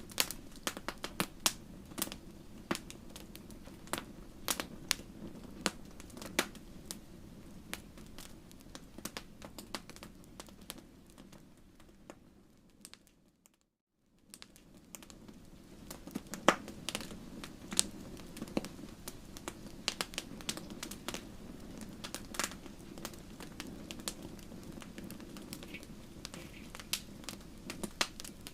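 Wood bonfire crackling, with irregular sharp pops and snaps over a low steady rush. The sound fades out a little before halfway and comes back about a second later.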